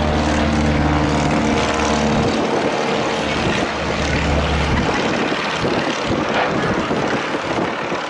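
Stinson Reliant's single radial piston engine and propeller droning past in flight. The drone holds a steady pitch for the first couple of seconds, then breaks up and fades about halfway through. Wind rushing over the microphone takes over near the end.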